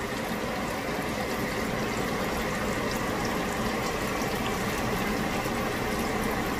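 Butter sauce with seasonings cooking in a pot on the stove: a steady bubbling hiss with faint crackles.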